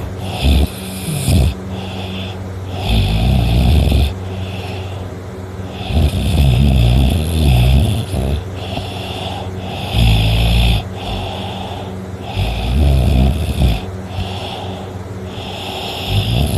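A man snoring, with a rough, rattling snore about every three seconds.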